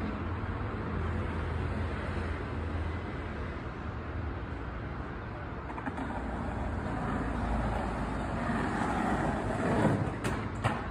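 Outdoor street noise: a steady, traffic-like rumble that grows louder over the last few seconds, with a few sharp clicks near the end.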